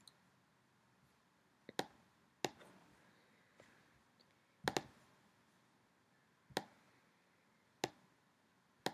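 Computer mouse button clicking: sharp single clicks every second or two, with a quick double click about halfway through.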